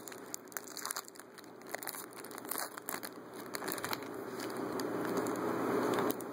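A trading-card pack wrapper being torn open and crinkled by hand, with sharp crackles, mostly in the first few seconds.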